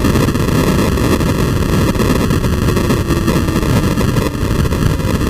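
Onboard sound of a 2007 Honda CBR600RR's inline-four engine and the wind at track speed, mangled into a harsh, steady, crunchy hiss by a GoPro audio fault that sounds like it got stuck in 8-bit mode.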